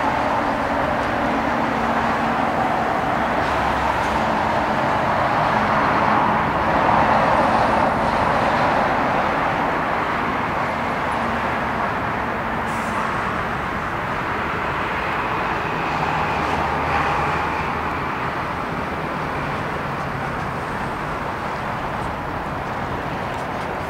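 Boeing 737-800's CFM56-7B turbofan engines running at low taxi thrust: a steady jet noise that swells about seven seconds in and again around seventeen seconds.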